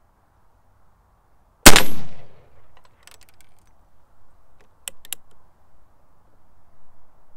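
A single shot from a Pietta reproduction LeMat .44 black-powder percussion revolver, about a second and a half in, dying away over half a second. A few faint clicks follow.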